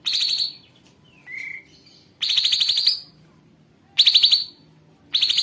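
Kapas tembak bird song: short, rapid, harsh rasping trills repeated four times, each lasting about half a second to a second, with a brief softer whistled note between the first two.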